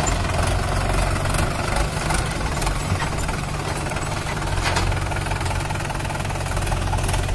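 Mahindra 575 DI tractor's four-cylinder diesel engine running steadily with a knocking diesel clatter as the tractor moves at low speed.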